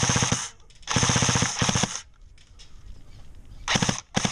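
Echo 1 Troy TRX10 airsoft electric rifle firing full-auto: the gearbox whirs under a rapid rattle of shots. One burst cuts off about half a second in, a second lasts about a second, and two short bursts come near the end.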